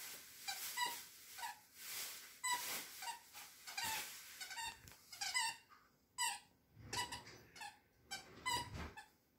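A poodle puppy chewing a squeaky dog toy, squeezing out short, high squeaks about twice a second, with light crackling chews between them.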